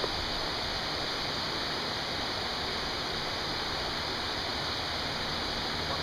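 Steady rushing of a waterfall, an even noise without a break.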